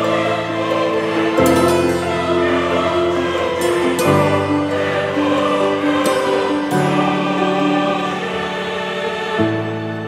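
Background music of slow, long-held chords, the harmony shifting every two or three seconds.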